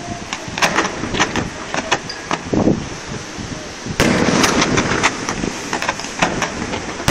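Fireworks going off: a rapid string of sharp bangs and pops, then a loud burst about four seconds in, followed by a dense, noisy spell full of crackling pops.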